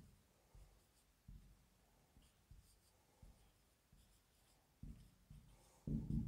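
Marker pen writing numbers on a whiteboard: faint, short scattered strokes, the loudest group near the end.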